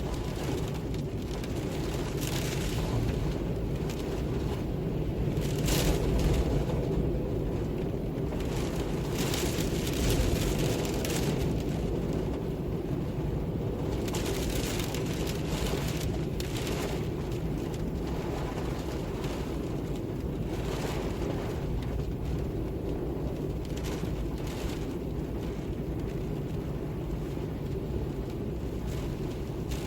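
Steady, deep wind rumble, swelling a little now and then, with scattered soft crackles over it.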